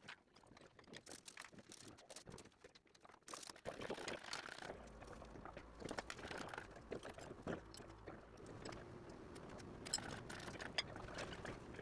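Faint scattered clicks and light knocks, a little busier from about four seconds in, from an engine hoist and chain taking up a BMW M54 straight-six engine as it is lifted off its subframe.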